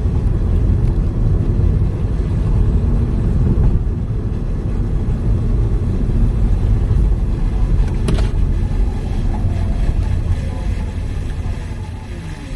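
Car on the road: a steady low rumble of engine and road noise. A single sharp click comes about eight seconds in, and the rumble drops off near the end.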